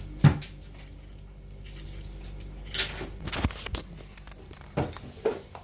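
A few sharp knocks and clunks of kitchen things being handled: the loudest comes just after the start, with more around three and five seconds in.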